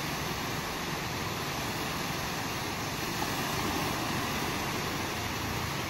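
Steady rushing noise of small waves washing on a sandy beach, mixed with wind buffeting the microphone.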